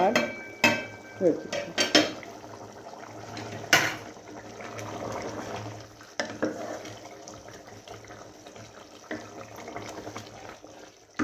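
Aluminium pot lid lifted off and set down with a few metallic clanks, one ringing briefly, then a wooden spoon stirring a bubbling, simmering curry in the aluminium pot.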